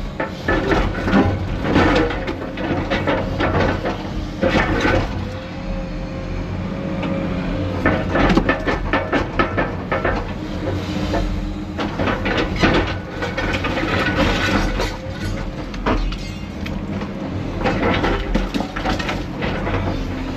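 Excavator with a demolition grab working broken concrete: a diesel engine runs under load with a faint hydraulic whine, and chunks of concrete clatter and scrape irregularly throughout.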